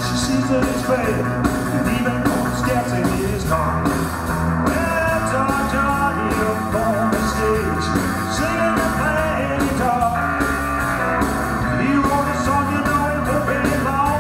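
Live rock and roll band playing loud: electric guitar, electric bass and drum kit, with the drums keeping a steady beat.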